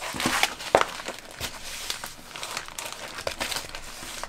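A folded diamond painting canvas and its plastic packaging crinkling as they are handled and unfolded, with a few sharper crackles, the sharpest a little under a second in.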